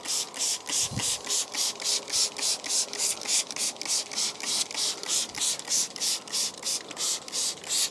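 Hand-held trigger spray bottle spraying water into a hole in a brick wall: rapid, even squirts, about four a second, each a short hiss. The brickwork is being wetted before pointing so the mortar bonds.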